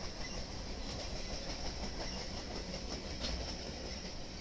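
Freight train of loaded flatcars rolling past at steady speed: a continuous rumble of steel wheels on the rails, with a few faint clicks.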